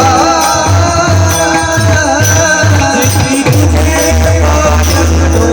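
Live Indian devotional-style music: a singer's voice over pakhawaj drum strokes with a deep, booming bass, and jingling hand percussion throughout.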